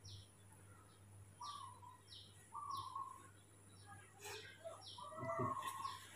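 Faint high chirping calls, each a quick falling note, repeated every half second to a second and mixed with short whistled notes lower down. A soft low thump comes a little past five seconds in.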